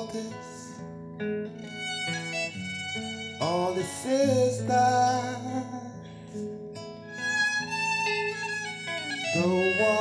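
Slow song: a man singing sustained, wavering notes over string accompaniment, with a bowed string line and steady low notes beneath.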